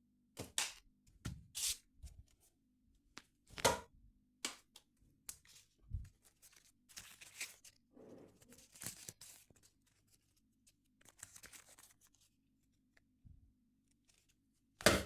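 Folded paper being handled, in short scattered rustles and crackles, with a louder sharp snap near four seconds in and another near the end.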